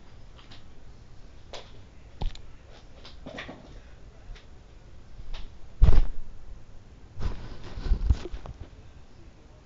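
Handling noise from a phone held against clothing: scattered clicks and fabric rubbing on the microphone, with heavy thumps about six seconds in and again between about seven and eight seconds.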